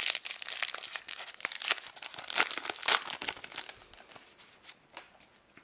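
A trading card booster pack wrapper being torn open and crinkled: a dense run of crackles for about three and a half seconds, then a few scattered crinkles.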